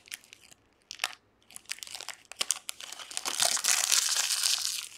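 Foil trading-card pack wrapper crackling as it is peeled open and the cards are slid out, then crumpled in the hand, a dense crinkling that is loudest over the last couple of seconds.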